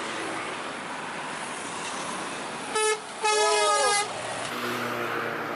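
A bus's musical multi-tone air horn: a short blast about three seconds in, then a longer blast of about a second whose notes slide up and down, over the steady noise of passing traffic. Near the end a low, steady engine hum comes in.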